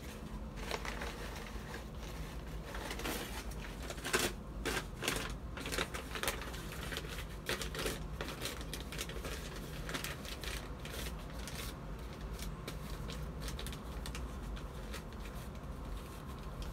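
Paper rustling and crinkling in irregular bursts of small clicks as newspaper pots and a paper seed packet are handled, loudest about four to six seconds in.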